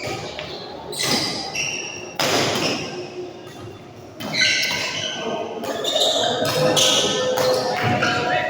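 Badminton rally on an indoor court: sharp knocks of racket hits and footfalls, one louder impact about two seconds in, and from about halfway on a run of short high squeaks from shoes on the court floor.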